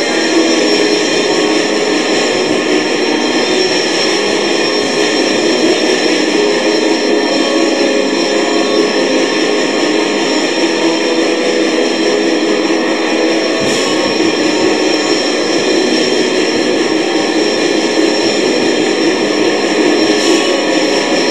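Raw, lo-fi black metal: a dense, steady wall of distorted guitar noise, with a deeper low end coming in a little past halfway.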